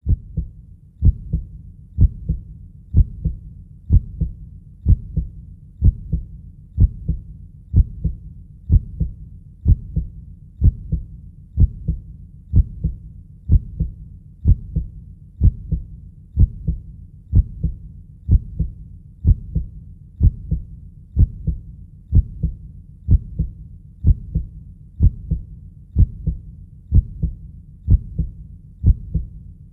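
Heartbeat, slow and steady at about one beat a second, each beat a low, muffled lub-dub double stroke.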